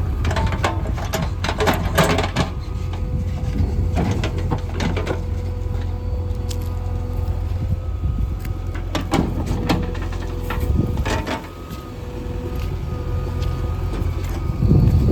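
A JCB 3DX backhoe loader's diesel engine running steadily under load, with bursts of knocking and clattering as stones are loaded into a tractor trolley, the loudest knock near the end.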